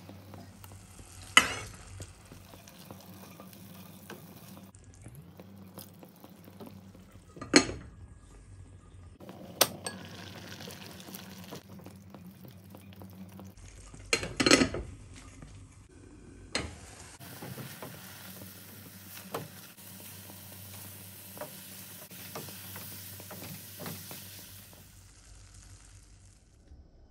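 Spatula stirring and scraping a grated-coconut mixture in a nonstick pan, with a few sharp knocks of the spatula against the pan. About halfway a short cluster of clinks as a glass lid is set on the pan, followed by a soft steady sizzling hiss.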